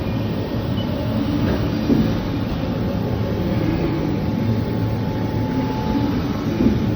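Haas EC-500 horizontal machining centre running, cutting copper: a steady mechanical rumble, with a faint thin whine from about four to six seconds in and a short knock about two seconds in and another near the end.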